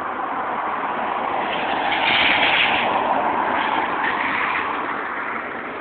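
Tornado winds blowing hard: a steady rushing noise that swells about two seconds in and then eases off.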